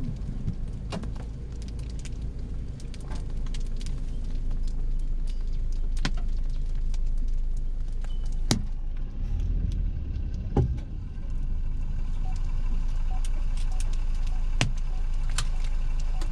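Sharp scattered taps of hailstones and heavy raindrops striking the car's roof and windshield, heard from inside the cabin over a steady low rumble. The hits come singly and get more frequent near the end as the supercell's hail core arrives.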